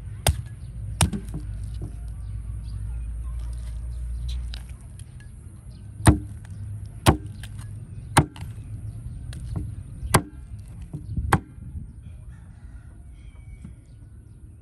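A heavy knife chopping: seven sharp strikes, two close together near the start, then five spaced about a second apart.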